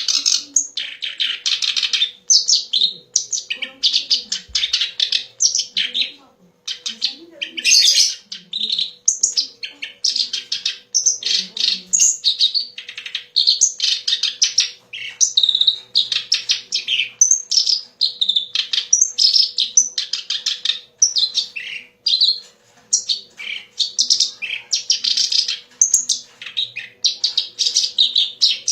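Kerak basi (reed warbler) singing a loud, rapid, chattering song of varied phrases, nearly without pause, the kind of song played as a lure recording to train caged songbirds. A faint steady hum runs underneath.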